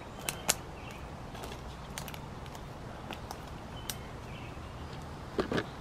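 Scattered footsteps, knocks and crackles of someone scrambling up a steep bank while carrying a small boat, over a low steady outdoor background. The sharpest knock comes about half a second in, and a few more bunch together near the end.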